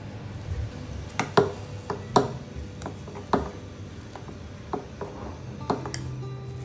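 Metal spoon stirring dosa batter in a glass bowl, clinking against the glass about ten times at uneven intervals, the loudest clinks coming in the first half.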